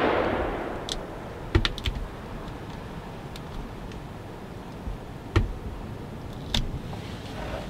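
A loud rush of noise fading away over about a second, then scattered sharp clicks and knocks, a quick cluster about a second and a half in and single ones later: handling noise on a hand-held camera being moved and zoomed.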